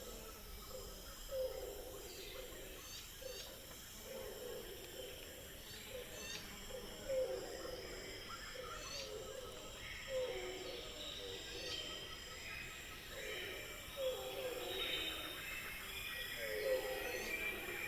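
Jungle ambience: a low animal call repeating about every two seconds, under scattered high bird chirps and a steady high insect drone.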